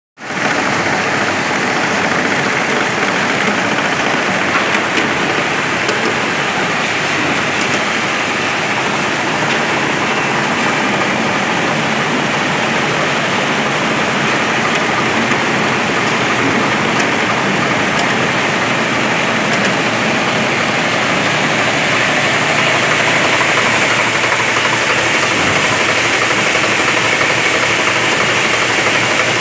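Conveyor running on ALHAN 870 cardan (side-flexing) chain: steady, dense machine noise with no break or change in speed.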